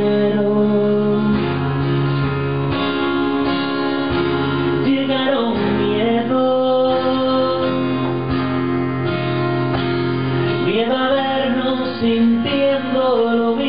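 Live acoustic guitar strummed under a violin playing held notes, the violin sliding between pitches twice.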